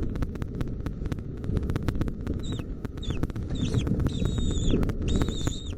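A bird calling: three short falling notes, then two longer held notes near the end. It is heard over a steady low rumble and rapid irregular clicking.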